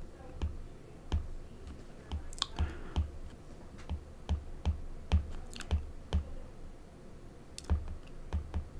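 Stylus tips tapping and clicking on a tablet's glass screen during handwriting: irregular light clicks, a few a second, each with a dull low knock.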